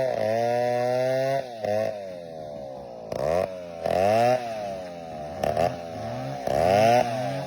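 Two-stroke chainsaw engine revved up and let fall back again and again, its pitch rising and dropping about five times.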